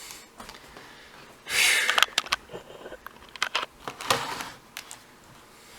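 A short breathy rush, then a scatter of light, sharp clicks and taps of a small plastic handheld computer being handled.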